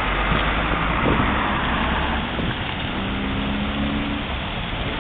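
Street traffic on a wet road: a minibus drives past close by, its engine running with a brief hum and its tyres hissing on the slush.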